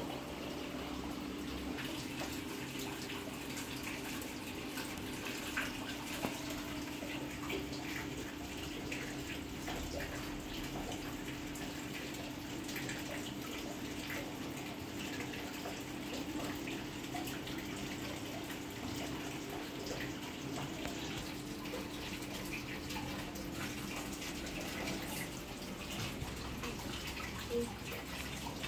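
Water running and trickling steadily with small splashes, over a constant low hum.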